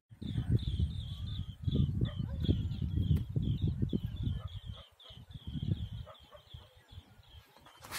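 Wind buffeting the microphone in low gusts, with a bird chirping rapidly over it, a few short high calls a second, which stop about six seconds in.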